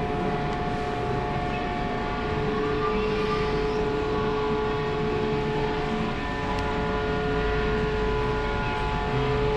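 Steady machine drone holding several constant pitches without a break.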